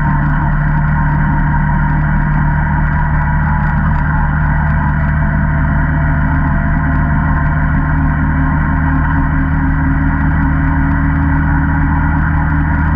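Single-cylinder ATV engine running at a steady speed, a loud, even drone with no revving.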